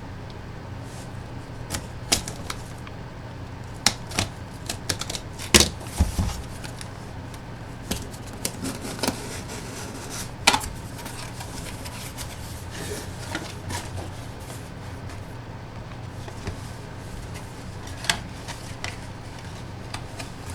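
Irregular clicks and knocks as a Gold Rush autograph baseball box and its packaging are handled and opened, over a steady low hum.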